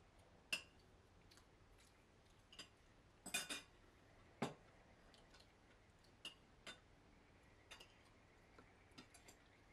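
Near silence broken by about ten scattered, irregular light clicks and taps. The loudest are a short cluster a little past three seconds in and a single tap about four and a half seconds in.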